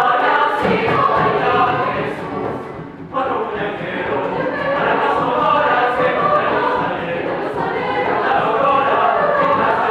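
Mixed youth choir singing in parts, accompanied by a Venezuelan cuatro, with a brief break in the phrase about three seconds in.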